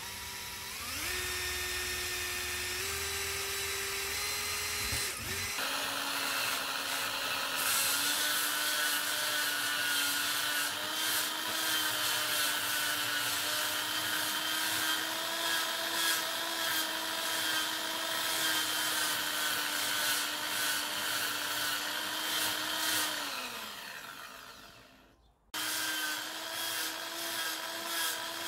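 Power drill spinning up and boring a hole in a small pine block for about five seconds, then a drill-stand-mounted drill spinning a hook-and-loop sanding pad with a steady motor whine while a wooden track link is held against its rim, a scratchy rasp of sanding over it. Near the end the motor winds down and briefly cuts off, then starts again.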